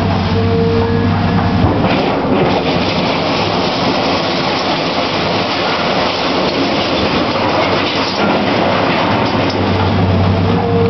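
Caterpillar 322B L hydraulic excavator's diesel engine running with a steady hum and a higher whine near the start and end, while sheet-metal demolition debris rattles and scrapes under the bucket through the middle.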